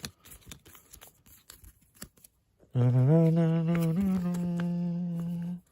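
A man humming a few long held notes that step up in pitch, for about three seconds in the second half. Before it come only faint clicks and rustles of cards being handled.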